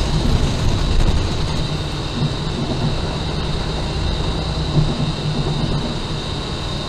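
Engine and road noise heard inside a moving city bus: a steady low rumble with a thin, steady high whine over it.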